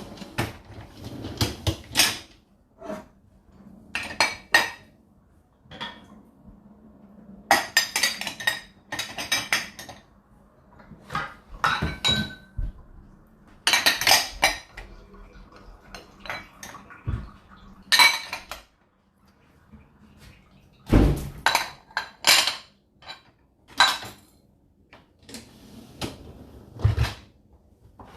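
Dishes and cutlery clattering and clinking in irregular bursts of sharp knocks and rattles, some with a short ringing tone, with quieter gaps between them.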